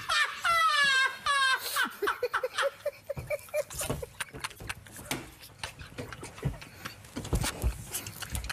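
Several people laughing hard and helplessly. A high-pitched, wavering laugh comes in the first couple of seconds, then breathy, pulsing bursts of laughter.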